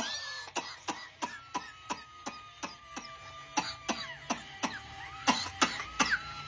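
A rhythmic run of short, evenly spaced coughs, about three a second, over faint held tones: coughing laid out as a beat.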